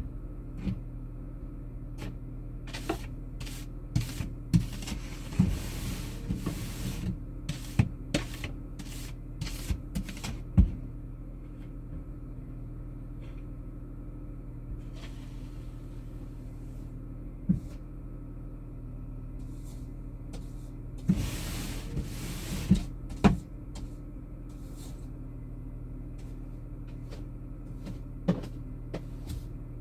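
Steady low drone of a car interior while driving, broken by frequent sharp knocks and rattles and a few short hissing washes of noise.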